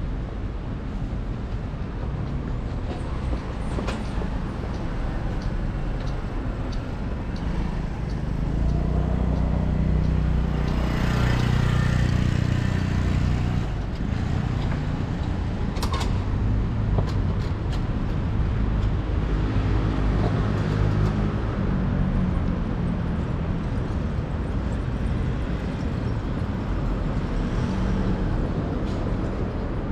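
City street traffic noise: a steady low rumble of passing vehicles, swelling for several seconds in the middle as traffic passes close.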